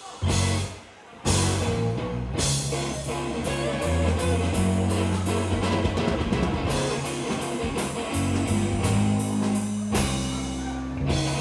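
Live blues-rock band playing: electric guitars, bass and drum kit. A short band hit and a brief pause open it, then the full band plays on, with a run of quick, even hits in the middle.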